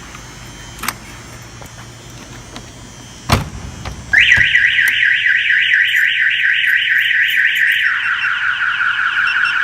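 A sharp thump, then about a second later the 1981 Corvette's Clifford 3305 alarm siren goes off loudly, a rapid run of rising whoops about five a second that switches to a different tone pattern near the end. The alarm's shock sensor picked up the jolt and set it off.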